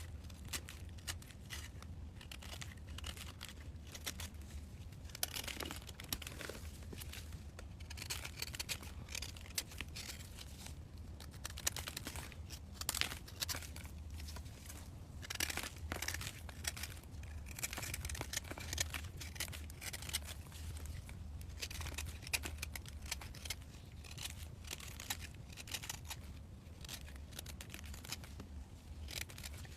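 Close-up crunching, crackling and tearing of a dry, crumbly material: a dense, irregular run of small crackles, busiest in the middle, over a steady low hum.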